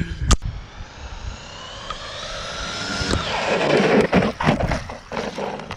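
Arrma Kraton 6S brushless RC truck accelerating hard, its motor whine rising steadily in pitch for a couple of seconds, then a louder rush of tyre noise and several sharp knocks as it reaches the ramp and lands.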